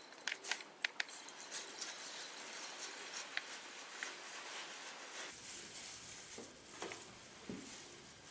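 Faint handling noises: thin plastic gloves crinkling, with scattered small clicks and taps as gloved hands handle dyed eggs.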